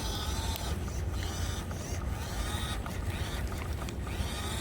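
Remote-control toy bulldozer's small electric drive motors and gearbox whining as it drives, the high whine rising and falling as the throttle changes.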